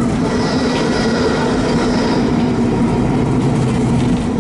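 Old tram running along its track, heard from inside the car: a steady rumble of wheels on rails with a low electrical hum, and a faint high whine for a couple of seconds near the start.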